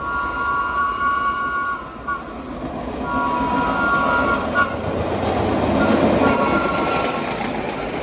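A vintage R9-type New York subway train approaches and passes, sounding its horn three times, the first two blasts long and the third shorter. Under the horn, the rumble of its wheels on the rails grows louder as it draws level.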